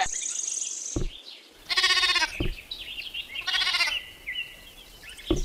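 A goat bleating twice, each call about half a second long with a wavering quaver, with thin high chirps in between.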